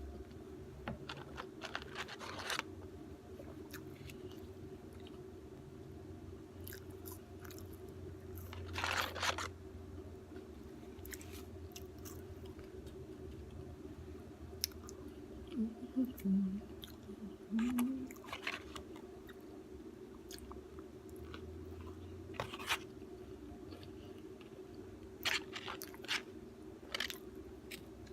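A person chewing and biting McDonald's food close to the microphone, with scattered short crunches, over a steady low hum.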